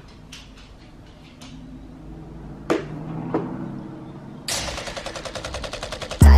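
Edited intro sound effects: a few soft clicks and two sharp knocks, then a fast rattle of evenly spaced strokes that grows louder, cut off at the very end by a heavy bass hit as intro music begins.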